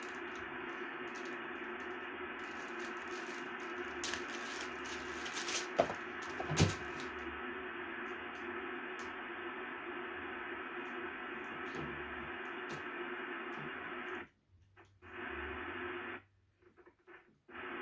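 Ham radio transceiver's speaker putting out steady static with a faint steady tone under it, the sound of a weak test transmission that is barely readable. There are two sharp clicks about six seconds in, and the static cuts out twice near the end.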